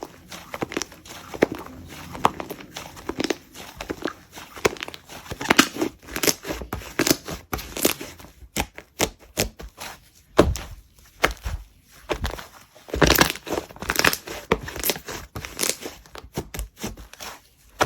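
Slime being squeezed, stretched and pressed by hand, giving irregular crackling, popping and squelching clicks, with louder clusters about halfway through and again a little later.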